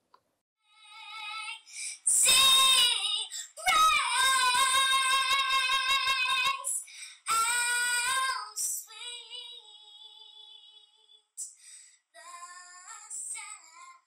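A young girl singing solo, holding long high notes with a marked vibrato. The loudest notes come in the first half, followed by softer, shorter phrases.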